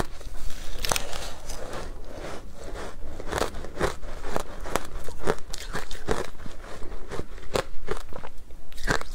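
Close-miked crunching of ice covered in matcha powder, bitten off a spoon and chewed, in a steady series of sharp crunches about two a second.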